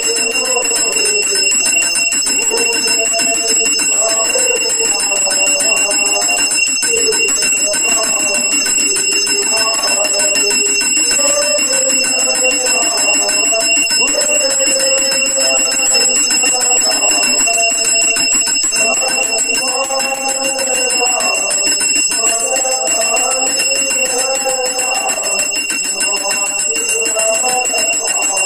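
A brass hand bell rung without pause, a constant high ringing, while a man sings an aarti hymn into a microphone.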